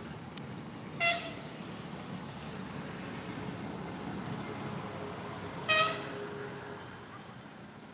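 Two short vehicle horn toots, one about a second in and a second about five seconds later, over a steady low background rumble.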